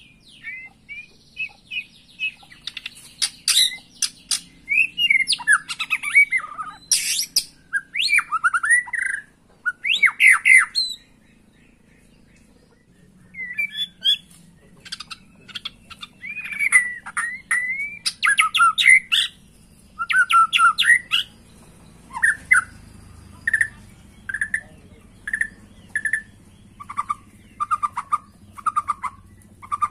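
Male white-rumped shama singing a loud, varied song of whistled phrases mixed with sharp, scratchy notes, with a pause of about two seconds near the middle. In the last third it repeats a short whistled note about once a second.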